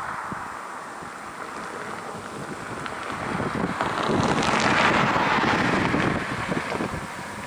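Jet noise from a Boeing 787-8 Dreamliner's two Rolls-Royce Trent 1000 turbofans as it approaches to land. The rushing sound swells to its loudest about four to six seconds in, then eases. Wind buffets the microphone with a gusty rumble throughout.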